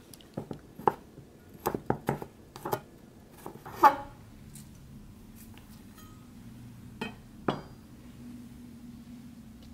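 Chef's knife slicing garlic cloves on a wooden cutting board: sharp knocks of the blade striking the board, a quick run in the first four seconds with the loudest about four seconds in, then two more near seven and a half seconds.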